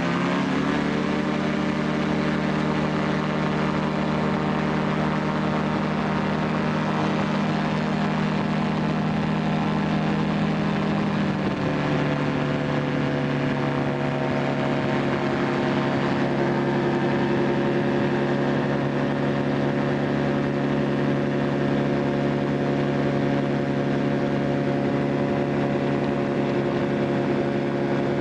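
Ultralight aircraft engine and propeller heard from the open seat, revving up right at the start for the takeoff and climb, then running steadily. About eleven seconds in the engine note shifts pitch in one step and holds there.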